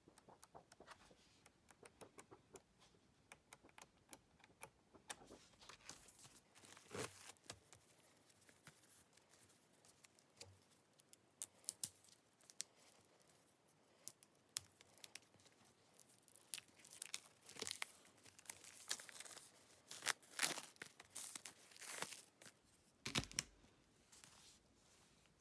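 Thin clear plastic shrink wrap being torn and crinkled off a K-pop CD album in repeated crackly bursts, busiest in the second half. Faint page flicks come at the start, and there is a single dull thump near the end.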